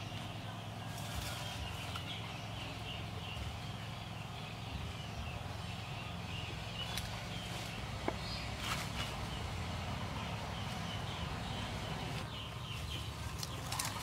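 Forest ambience: steady, pulsing high chirping from wild creatures over a low steady rumble, with a few brief crackles of leaves and undergrowth being pushed aside about halfway through and near the end.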